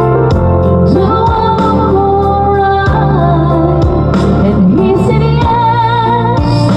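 Background song: a female voice singing over instruments with a steady beat.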